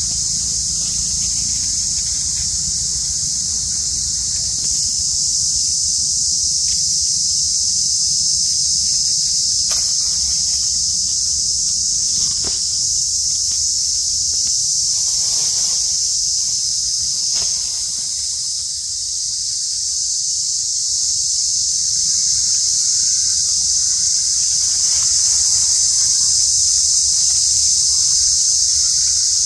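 Insect chorus: a loud, steady, high-pitched shrill drone that holds unbroken, with a few faint clicks.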